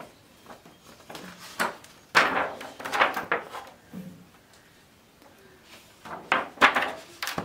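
Stiff pages of a photo album being turned by hand: two spells of rustling and flapping, the first about two seconds in and the second about six seconds in.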